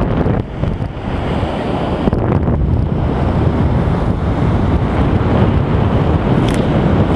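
Wind buffeting the microphone with a heavy, steady low rumble, over the wash of ocean surf.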